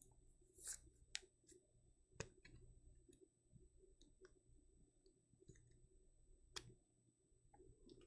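Faint, scattered clicks and light ticks of trading cards being handled and slid against one another, about one every half second to second.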